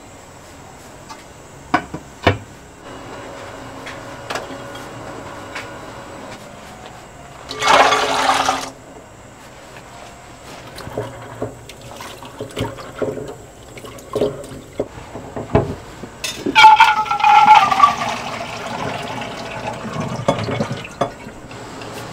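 Water running into a glass bowl of raw peanuts as they are washed by hand, in two loud spells with swishing and splashing between; in the second spell the pitch of the water slides downward. A few light knocks of kitchenware come at the start.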